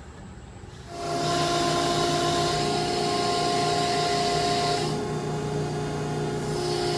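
Handheld rotary power tool starting about a second in and running steadily with a whine. A higher hiss over it fades for about a second and a half midway and comes back near the end.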